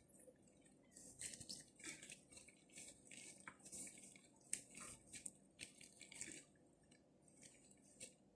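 Faint, irregular rustling and soft squishing of gloved hands rolling rice-stuffed grape leaves, in short scattered bursts.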